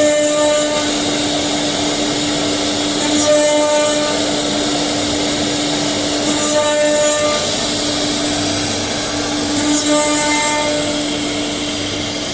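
5-axis CNC router spindle running steadily while trimming the edge of a carbon-fibre composite part, a constant hum under a hiss of cutting. About every three seconds a brief higher whine with overtones rises over it.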